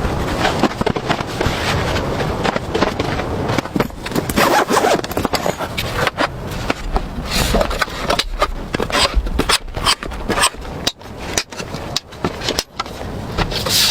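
Irregular scraping and rustling with many short knocks, from camping gear being handled.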